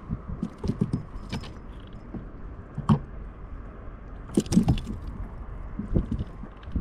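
Scattered clicks and knocks of gear being handled aboard a kayak, with sharper knocks about three and four and a half seconds in, over a low rumble.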